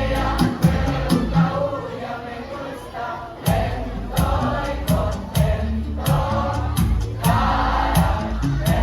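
A student choir singing together over an accompaniment with a bass line and a steady percussive beat.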